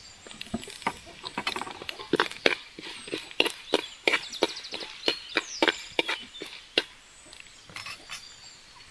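Black peppercorns and cumin seeds crackling and popping in hot oil in a pan, a quick, irregular run of sharp pops.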